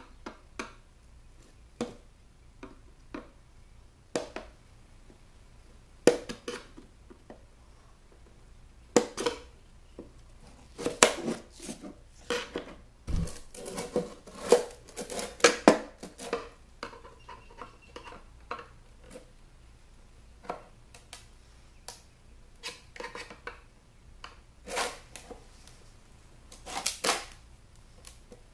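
Screwdriver prying at a stuck speaker driver in a plastic speaker cabinet: scattered clicks and knocks of metal on plastic, with clusters of quick scraping, as the cabinet is worked and turned in the hands.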